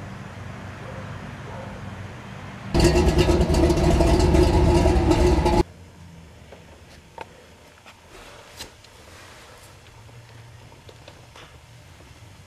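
Car engine rumbling steadily, then a loud burst of hard revving for about three seconds that cuts in and out abruptly; afterwards a quieter low hum with a few faint clicks.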